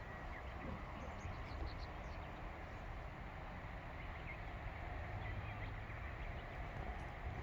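Quiet outdoor ambience: a steady low rumble with a few faint, short bird chirps.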